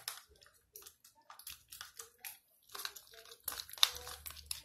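Gel slime being mixed in a container: an irregular run of short, sticky crackles and squelches, loudest a little before the end.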